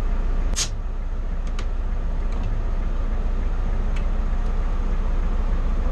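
A motorcoach's diesel engine running with a steady low rumble, heard inside the driver's cab. A sharp click comes about half a second in, with a few faint ticks after it.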